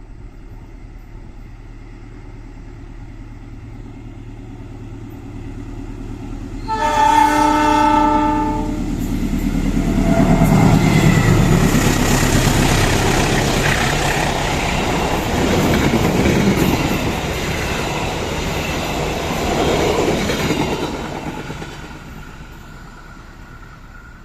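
A train approaches with a low engine drone, sounds one horn blast of about two seconds, then passes close by with loud wheel-on-rail clatter and rushing noise that fades away near the end.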